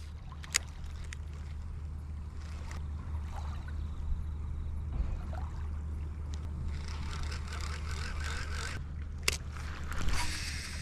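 Small waves lapping on a lakeshore beach, with a steady low wind rumble on the microphone. The wash grows louder in the last few seconds, and there are two sharp clicks, one near the start and one near the end.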